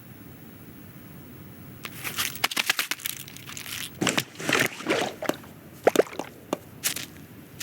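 Cartoon sound effects over a low steady background: about two seconds in, a quick irregular series of sharp clicks, snaps and squelchy, crunchy sounds begins and runs on until near the end.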